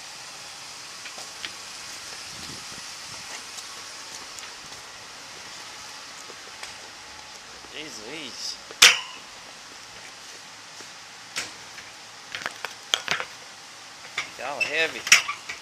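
Young puppies in a wire crate whimpering in short rising-and-falling cries, once around the middle and again, more of them, near the end, over a steady hiss. Scattered clicks, and one sharp click about nine seconds in is the loudest sound.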